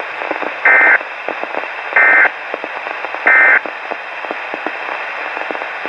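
Three short, identical bursts of warbling digital data tones from a weather radio, evenly spaced about 1.3 s apart: SAME/EAS coded bursts, short enough to be the end-of-message code closing the preceding bulletin. Steady radio static with crackles runs underneath.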